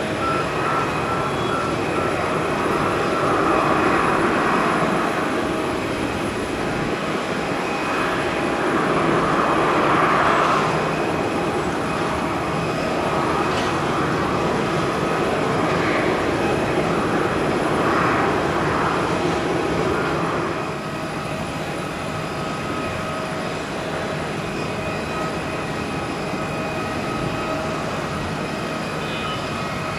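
Jet airliner engines running with a dense rushing noise and a steady whine, swelling and easing twice: an Airbus A330-300. About two-thirds of the way through, the sound drops to the quieter, even engine noise of an Airbus A320neo.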